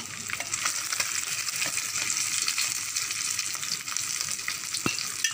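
Tilapia pieces frying in hot oil in a pan: steady sizzling with a fine crackle of spattering oil. A single small knock sounds about five seconds in.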